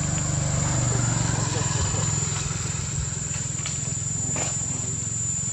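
Steady outdoor background: a low hum with indistinct distant voices, and a thin, constant high-pitched whine.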